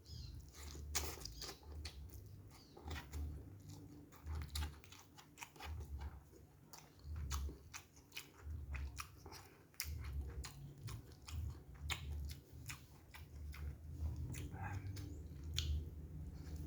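Close-up chewing and biting on free-range chicken thigh and noodles, with wet mouth clicks and an occasional crunch at an irregular pace.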